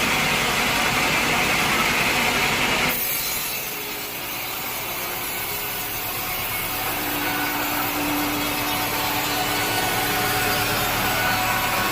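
Power saw cutting through wood with the mill's machinery running. The sound changes abruptly about three seconds in, then a steadier, quieter cut with a faint hum goes on.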